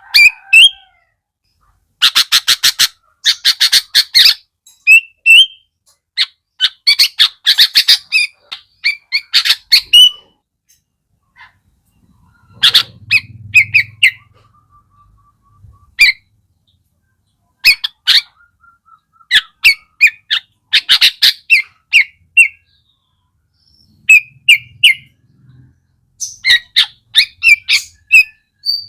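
Sooty-headed bulbul (kutilang) singing hard: clusters of rapid, sharp chattering notes fired off in quick succession, broken by short pauses and a few brief whistled phrases.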